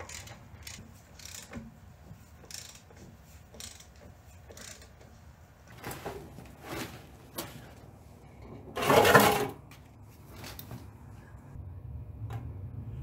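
Hand tools working on the underside of a tractor: scattered metal clicks and knocks, with one louder clatter about nine seconds in.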